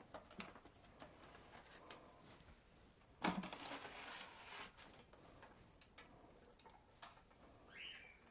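Quiet kitchen handling with faint clicks. About three seconds in, a foil-covered cake pan is set down inside an Instant Pot's stainless steel inner pot with a single knock, followed by a short stretch of rustling. A brief rising squeak comes near the end.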